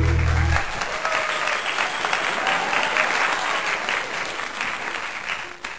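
A group clapping, with a few voices mixed in. The end of a music track stops about half a second in. The clapping thins out near the end.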